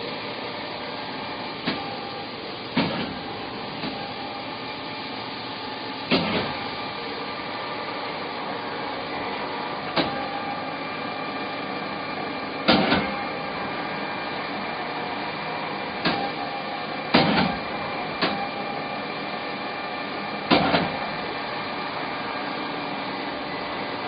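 Steady machine hum holding several steady tones from a powered-up Haas SL-40B CNC lathe, broken by sharp knocks every one to four seconds.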